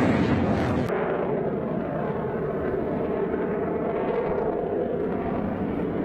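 Jet engine noise of a Sukhoi Su-57 fighter in flight: a loud, steady rushing sound with a faint whine in it. The highest hiss drops away abruptly about a second in.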